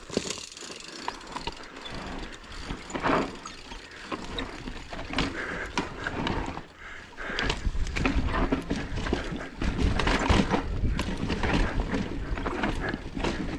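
Enduro mountain bike riding down a rocky dirt trail: tyres crunching over rocks and the bike rattling with many sharp clicks and knocks, under a low rumble that gets heavier about halfway through.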